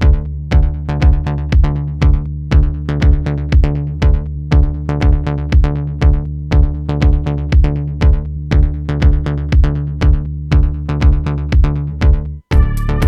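Electronic background music with a steady drum-machine beat, about two beats a second, over held low notes. Near the end it drops out for an instant and comes back with brighter high notes.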